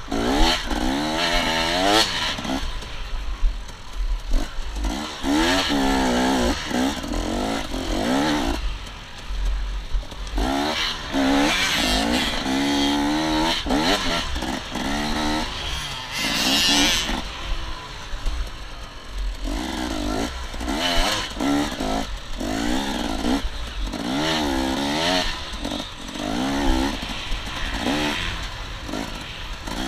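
Off-road motorcycle engine revving up and easing off again and again as the bike accelerates, shifts and slows along a sandy track, heard from the rider's helmet camera.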